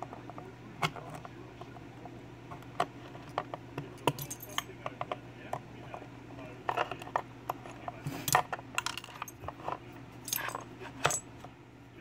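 Scattered sharp metallic clicks and clinks as pliers work at the back of a Kwikset Titan lock cylinder during disassembly, the loudest clink about eight seconds in.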